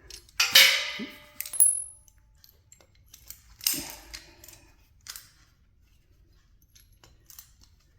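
Small metal parts being handled, giving a few sharp ringing clinks, the loudest about half a second in and another a few seconds later, then a few faint taps.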